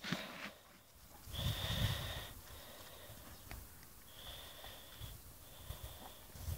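A dog sniffing and snorting with its nose at the ice, in three short bouts with quieter gaps between.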